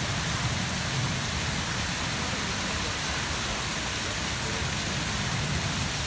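Peterhof's Grand Cascade fountains running: a steady rush and hiss of water jets spraying and falling back into the basin, with water splashing down the cascade steps.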